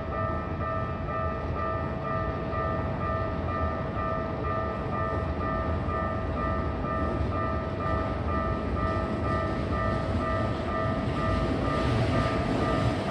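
Japanese level-crossing warning bell ringing in a fast, even electronic clang over the rumble of a train, which grows louder near the end as the train comes closer.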